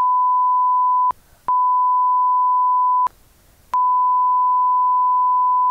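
Censor bleep: one steady high pure tone laid over speech to hide a spoiler about the film's ending. It comes as three long tones, with short breaks about a second in and about three seconds in.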